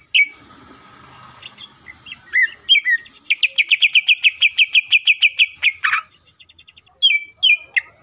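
Greater green leafbird (cucak ijo) singing. Scattered whistled notes build into a fast, even run of about eighteen clear chirps at some seven a second. It then gives a harsh note and a few more whistles near the end.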